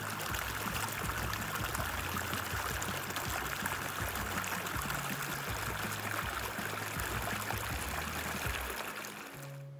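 Steady rush of running water from a stream, fading out near the end.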